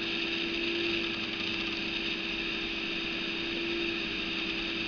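Steady background hum and hiss with one even low tone, with no clicks or handling sounds standing out.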